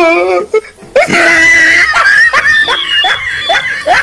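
A person laughing hard: a loud, high shrieking laugh starts about a second in, followed by a run of quick repeated laughs.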